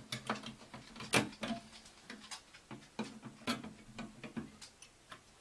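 Irregular clicks and knocks of an Olympia SM7 manual typewriter's metal body and cover being handled and moved.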